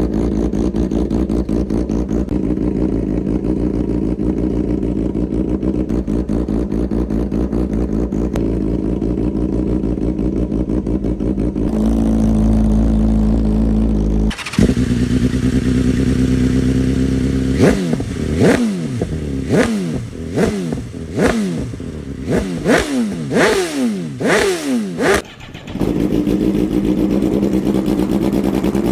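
Superbike engines running after a cold start, in several cut-together clips: a steady loud idle for the first dozen seconds, a different idle, then a run of about ten quick throttle blips, each rising and falling in pitch, before settling back to idle near the end.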